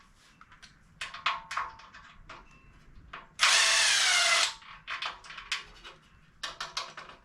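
A power drill runs in one burst of about a second, its whine dropping slightly in pitch, between scattered sharp clicks and knocks from tools and parts being handled.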